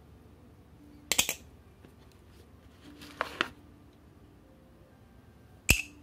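Squid Industries balisong being handled, its metal handles and latch clicking in three short sharp bursts about two seconds apart.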